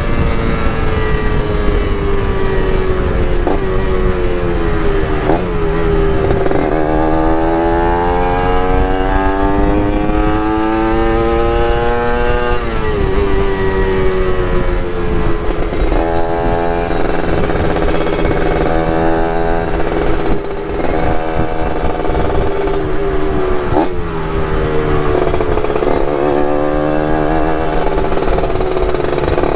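Yamaha RX-King's single-cylinder two-stroke engine under way on the road, its pitch climbing steadily for several seconds and then dropping sharply at each gear change, over rushing wind noise.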